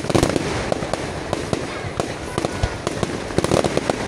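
Fireworks display: aerial shells bursting in quick succession, a steady run of sharp bangs and reports, with dense clusters of bangs at the start and again about three and a half seconds in.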